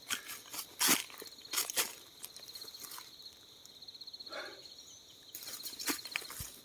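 Irregular crunching steps through dry forest leaf litter, several strokes spaced about a second apart. An insect trills in rapid high pulsed bursts.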